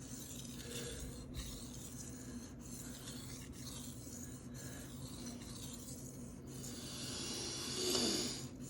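Knife blade stroked back and forth on a wet Shapton Rockstar 1000 whetstone, a steady scraping rasp with short breaks between strokes that gets louder near the end. This is tip work to raise a burr along the edge.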